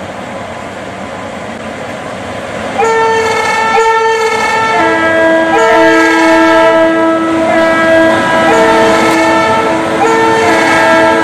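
Electric locomotive's two-tone air horns, sounding from about three seconds in and going on, switching back and forth between a higher and a lower horn and sometimes sounding both together. Before that, the quieter running noise of the train.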